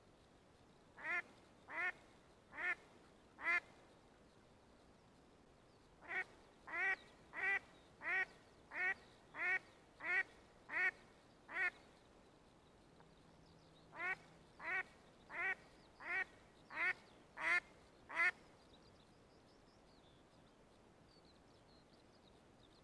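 A hen duck quacking in three runs of loud, evenly spaced quacks, about one and a half a second: four, then nine, then seven. Each quack falls slightly in pitch.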